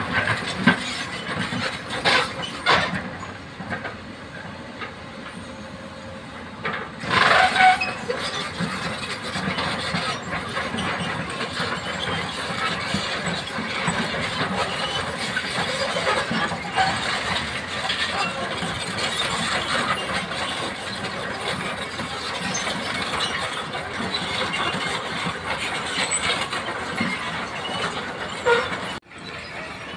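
Komatsu PC200 hydraulic excavator working, its diesel engine running under the metallic noise of its steel crawler tracks, louder about two seconds in and again around seven to eight seconds.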